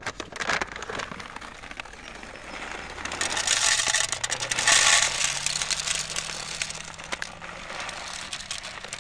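Sweet corn seed poured from a paper bag into the plastic hopper of a push garden seeder: a rattling hiss of kernels that builds about three seconds in and is loudest around the fifth second, with the paper bag rustling.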